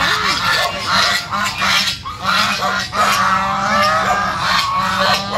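A flock of white domestic geese honking noisily, with many calls overlapping in quick succession.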